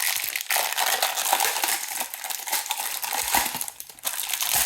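Packaging being handled and crinkled while compressor accessories are unpacked, with small clicks and knocks; it drops away briefly near the end.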